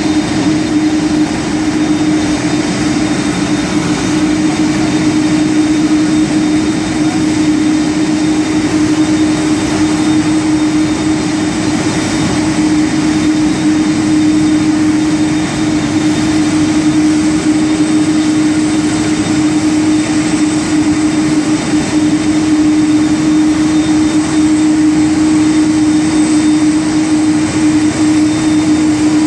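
Aircraft turbine running steadily on the apron: a loud, even drone with a constant low hum through it.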